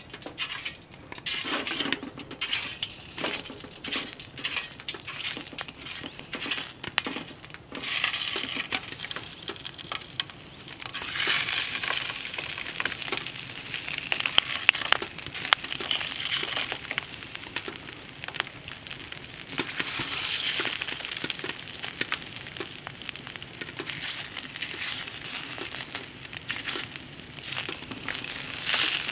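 Sausages sizzling and spitting as they fry in a titanium frying pan on a wood-burning stove. There are irregular crackles at first, and the sizzle becomes a louder, denser hiss about a third of the way in as more sausages go into the pan.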